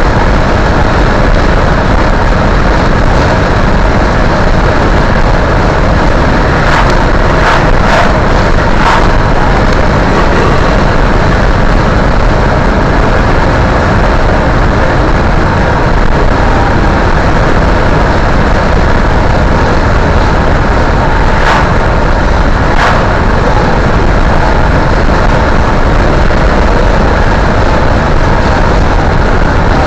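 Steady road and engine noise of a car driving along, heard from inside the cabin, with a few faint short ticks about a quarter of the way in and again later.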